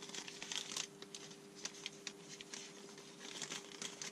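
Plastic bag crinkling and rustling as it is handled, with small irregular crackles and clicks, over a faint steady hum.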